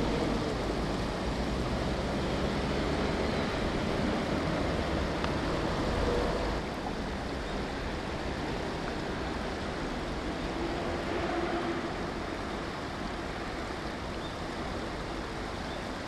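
River water rushing and splashing over concrete blocks in a steady wash, dropping a little in level about six seconds in.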